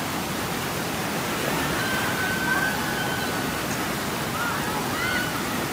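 Steady rushing of a fast, rain-swollen river running high through whitewater rapids.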